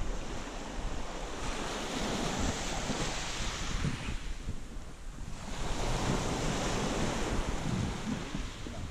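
Small waves breaking and washing up a gravel-and-shell beach, with wind buffeting the microphone. The wash eases about halfway, then the next wave comes in.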